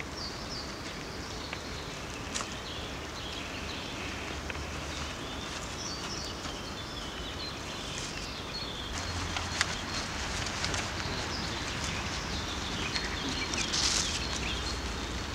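Outdoor ambience: a steady low background rumble with faint birds chirping. A few brief soft clicks and scrapes come as paste is brushed onto a paper cut-out.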